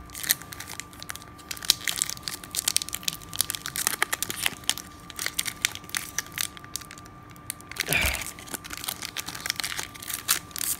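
Foil wrapper of a 1998 Bowman Chrome card pack crinkling and crackling as fingertips pick and tear it open, with a louder rustle about eight seconds in.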